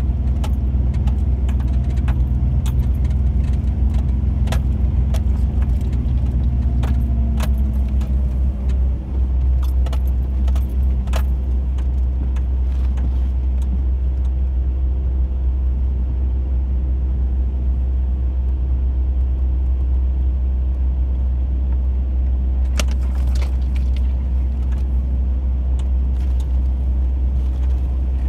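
Chevrolet Blazer ZR2 running along a snowy trail: a steady low rumble of engine and drivetrain, with the engine note dropping about seven seconds in. Light clicks and jingling rattles come and go over the bumps.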